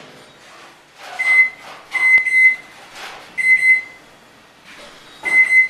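Danby microwave keypad beeping as buttons are pressed to set the time and start it, about five high, steady beeps of about half a second each. This is a test run after a faulty door micro switch was replaced.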